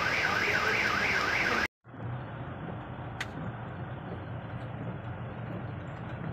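An electronic siren warbling up and down about two to three times a second over traffic, cut off suddenly under two seconds in. Then a steady hiss and low rumble of a car in heavy rain, heard from inside, with one brief high beep about three seconds in.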